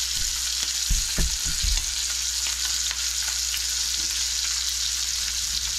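Steady sizzling hiss at a gas stovetop as a pat of butter goes into a heating saucepan to melt. A few soft low knocks come about a second in.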